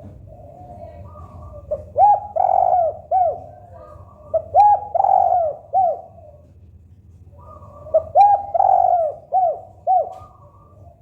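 Spotted dove (tekukur) cooing: three loud, arched cooing phrases about every three seconds, with softer cooing from other doves behind them.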